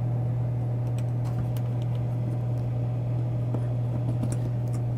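Royal 660-9 soda vending machine running with a steady low hum, with a few faint clicks of small parts being handled.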